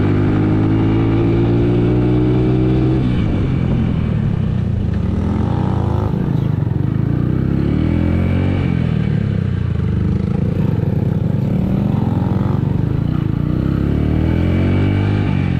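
Motorcycle engine running as the bike is ridden. Its pitch climbs for about three seconds, drops abruptly, then rises and falls several times as the throttle is opened and closed.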